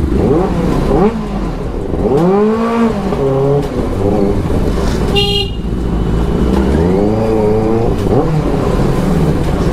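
Benelli superbike's engine revved in repeated blips, the pitch sweeping up and falling back several times while the bike rolls slowly. A horn beeps briefly about five seconds in.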